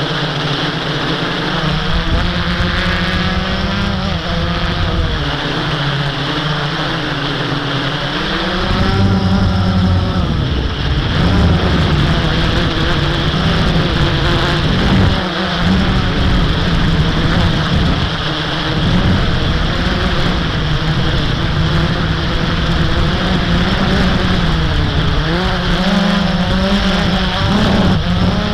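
Blade 350 QX quadcopter's brushless motors and propellers whining in flight, the pitch rising and falling again and again as the throttle changes.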